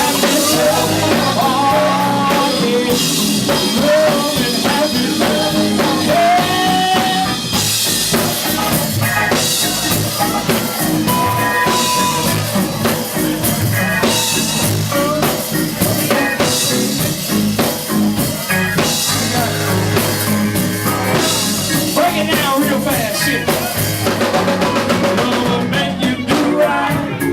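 A live band playing a soul-blues groove, with a busy drum kit and a melodic lead line over it.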